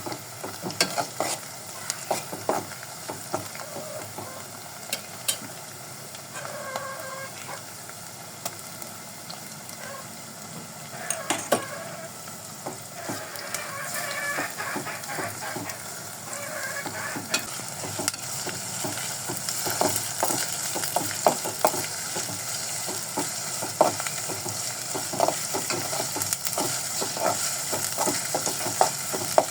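Food frying and sizzling in a pan while a spatula stirs it, with many short clicks and scrapes of the spatula against the pan. The sizzle grows louder in the second half.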